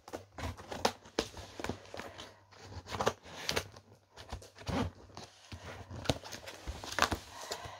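Cardboard packaging being handled and pulled at while trying to get a box open: irregular knocks, scrapes and rustles.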